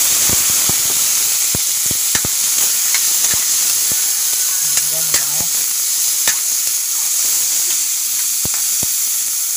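Chopped tomatoes, onions and ginger sautéing in hot oil in a wok, a steady sizzle, with scattered clicks and scrapes of a metal spatula against the pan as they are stirred.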